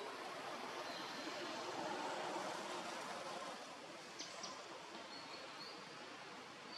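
Outdoor ambience: a steady background hiss with faint high bird chirps, and two short clicks about four seconds in.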